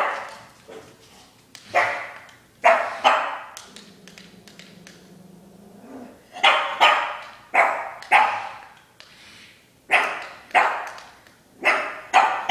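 Pug barking: about ten short, sharp barks in irregular groups of two or three.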